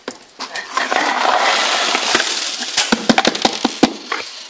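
Coins tipped out of a charity collection can onto a table: a dense jingling rush for about two seconds, then a run of separate clinks as the last coins fall and settle.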